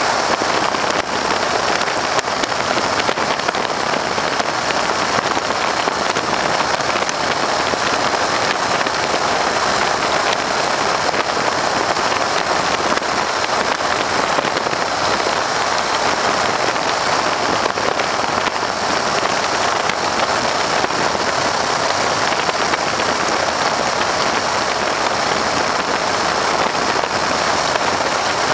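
Steady, loud rush of slipstream wind and engine noise in the open cockpit of a Stearman PT-13 biplane in flight, an even roar with no change in pitch or level.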